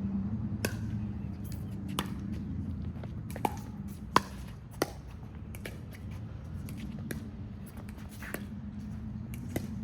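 Sharp pops of paddles striking a plastic pickleball during a rally, about a second apart, over a steady low hum.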